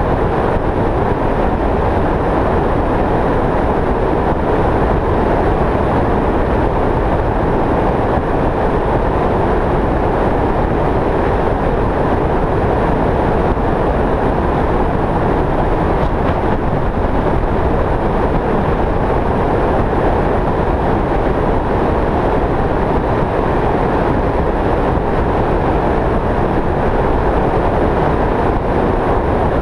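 Steady road and wind noise of a vehicle travelling at highway speed, an even, unbroken noise that holds at one level throughout.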